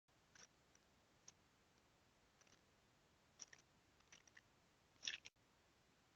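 Near silence with a few faint, short, high clicks at irregular moments, the plainest about five seconds in.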